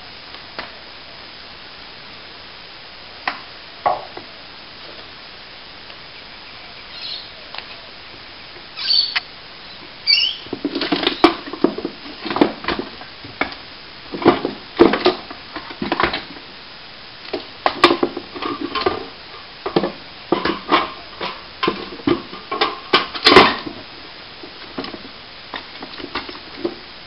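Broken plasterboard debris being handled: a few scattered clicks, then from about ten seconds in a long run of irregular knocks, clatters and scrapes as pieces are shifted and dropped.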